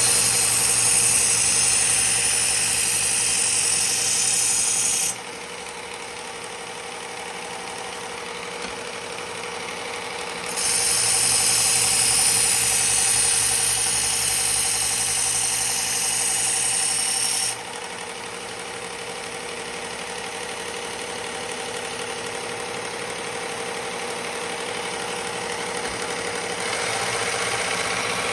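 Belt grinder with a 120-grit belt running steadily, with two long grinding passes of a chef's knife blade against the belt, each a loud hiss lasting several seconds: one at the start, one in the middle. Between the passes only the motor's steady hum and the belt's whir. These coarse-belt passes raise a burr along the edge.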